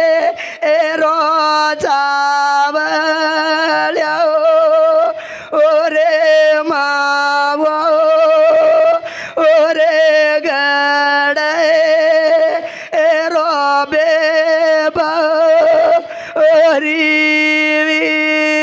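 A man singing a Banjara lament-style bhajan in long, wavering held notes. The phrases come one after another with short breaks, over a steady sustained accompanying tone. The song is of the dhavlo kind, the Banjara bride's weeping song.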